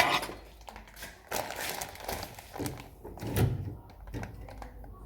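Rustling and a few knocks and thumps from handling laundry and household items, with a heavier thud about three and a half seconds in.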